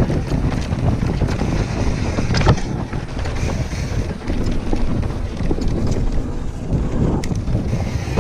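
Mountain bike riding fast down a rocky dirt trail: wind buffeting the camera's microphone over the rumble of tyres on loose stones and gravel, with sharp knocks and rattles from the bike over rocks, a loud one about two and a half seconds in.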